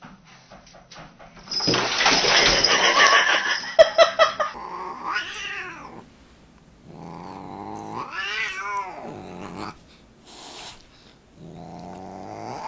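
A loud, rough burst of noise for about three seconds, then a Siamese cat yowling twice in long, drawn-out calls that rise and fall in pitch, the second one longer. A brief hiss follows near the end.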